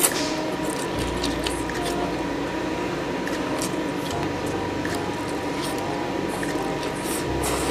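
Sauced wheat noodles being slurped and chewed close to a clip-on microphone: wet, squishy mouth noises with many short clicks and smacks.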